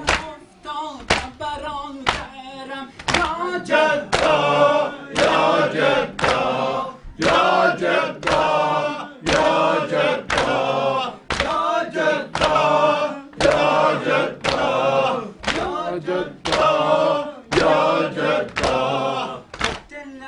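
Men's voices chanting a noha, a Shia lament for Imam Husayn, in a steady beat. Sharp, evenly spaced strikes of hands beating the chest (matam) run under the singing.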